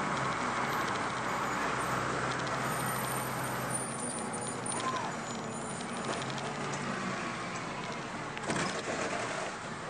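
Cab noise of a 2002 MAN 12.223 bus on the move: the six-cylinder diesel engine running with road and tyre noise, easing off somewhat in the second half. A sharp knock sounds about eight and a half seconds in.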